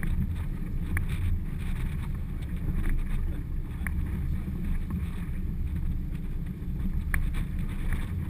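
Wind buffeting the microphone in a small boat on choppy water: a steady low rumble, with a few light knocks scattered through it.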